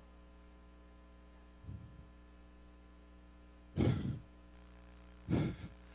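Steady electrical hum from the sound system, with two short breaths from a man into a handheld microphone, about two-thirds through and near the end.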